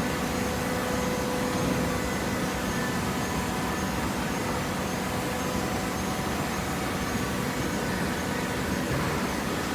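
Cardboard box baler's single-phase electric motor and hydraulic pump running steadily: an even mechanical hum with a few steady tones over a noisy whir.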